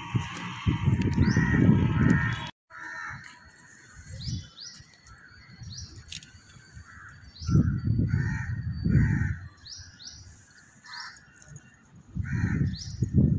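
Crows cawing over and over, with small birds chirping in quick rising notes, over bursts of low rumble on the microphone; the sound drops out briefly about two and a half seconds in.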